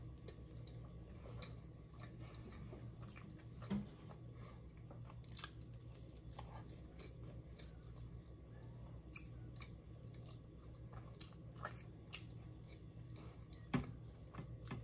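Faint chewing and biting of food, with scattered small wet mouth clicks over a low steady hum; two brief louder sounds stand out, about four seconds in and near the end.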